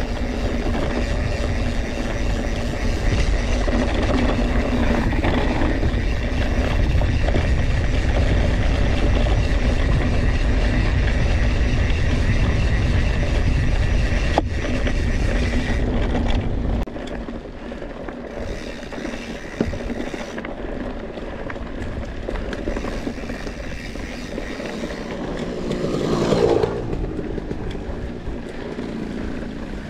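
A Scott Spark RC full-suspension mountain bike being ridden over dry, dusty trail, heard from an on-bike action camera: steady tyre rumble, drivetrain and frame rattle, and wind on the microphone. The heavy low rumble drops off sharply about two thirds of the way through, with a brief louder swell a few seconds before the end.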